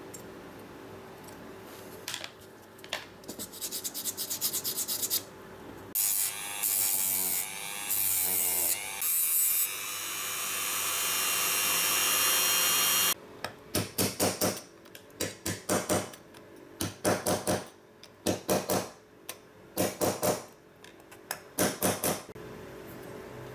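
Hand tools scraping and rubbing bare diecast metal of a Corgi Riley Pathfinder model in quick strokes. A few seconds of a rotary tool's small sanding disc whirring against the metal follow, rising in level before it cuts off sharply. After it comes a long run of separate rubbing strokes.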